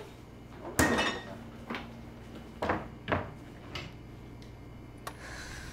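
Kitchen cupboard doors opened and shut and things knocked about inside them: a handful of separate knocks and clatters, the loudest about a second in.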